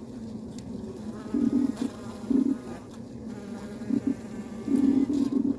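Honeybee colony humming, recorded from inside the hive, with an unusual stuttering, pulsing buzz over the steady hum. The buzz comes in short bursts that run almost continuously near the end. The beekeepers heard this sound from one hive for days and could not explain it.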